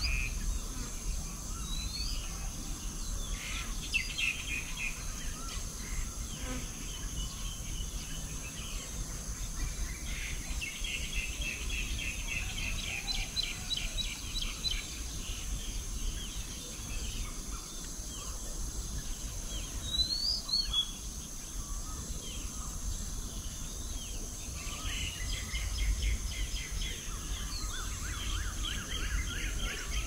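Songbirds calling outdoors: long runs of quick, repeated chattering notes come and go three times, with a short rising-and-falling call about two-thirds of the way through, over a steady high-pitched drone.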